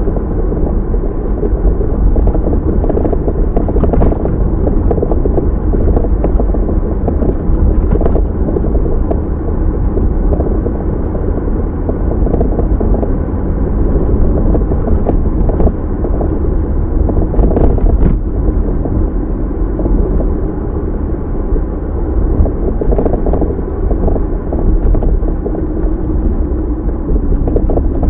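Car road noise picked up by a dashcam: a steady low rumble of tyres and engine while driving, with a few faint brief knocks.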